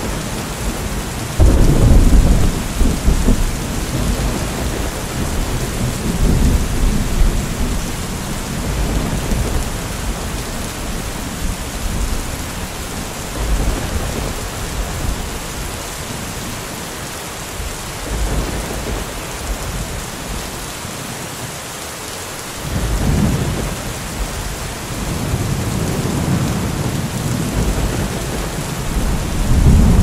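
Thunderstorm: steady rain hiss with rolling thunder. A sudden loud thunderclap comes about a second and a half in, followed by rumbles that swell and fade several times, and another strong rumble near the end.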